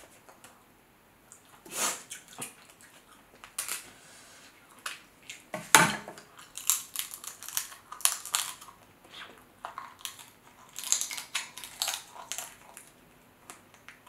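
Eating sounds: shells of boiled shrimp and crab legs crackling and snapping as they are peeled by hand, with wet chewing and lip smacking. The loudest crack comes about six seconds in.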